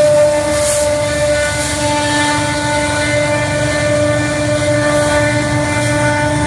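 Diesel locomotive running hard, a steady whine over its low engine rumble, the pitch sagging slightly. The sound is what the uploader puzzles over: the engine in notch 8, full throttle, or a failing turbocharger.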